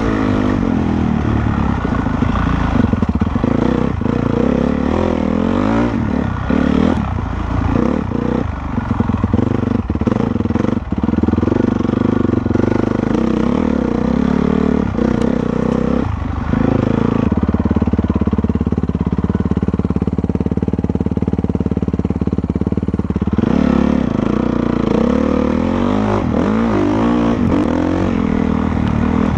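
Honda CRF450R's single-cylinder four-stroke engine running as the dirt bike is ridden, the engine note rising and falling with the throttle. Knocks and rattles come through between about six and eleven seconds in. From about seventeen to twenty-three seconds the engine holds a steady pitch.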